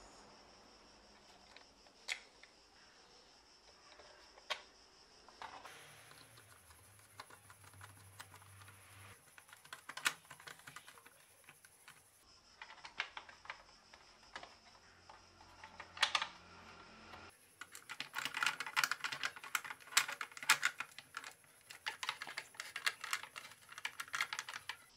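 Scattered small plastic clicks and taps as the scooter's plastic handlebar cover parts are handled and pressed together. In the last seven seconds there is a dense run of rapid small clicks as a screw is driven into the plastic with a screwdriver.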